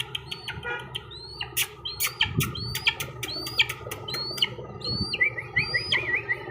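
Bird chirping: short high calls, each rising sharply at its start, repeated about twice a second, mixed with sharp clicks, with a quick warbling trill near the end.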